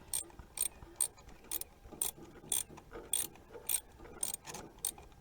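Ratchet wrench with a 12 mm socket clicking in quick, short strokes, about two a second, as a starter bolt is backed out once it has broken loose.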